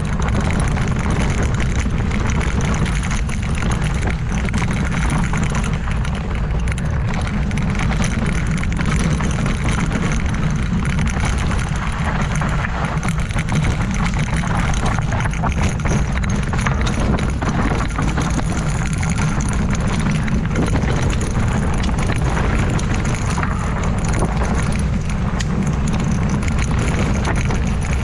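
Ibis Ripmo v2 mountain bike on Maxxis Assegai tyres riding fast down a dirt trail: steady wind rush on the microphone over tyre roar, with constant small rattles from the bike on rough ground.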